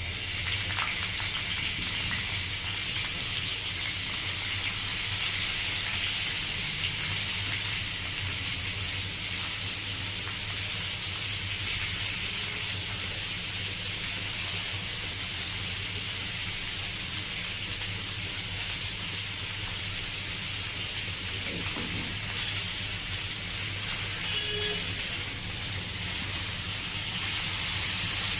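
Onions sizzling steadily as they fry in hot oil.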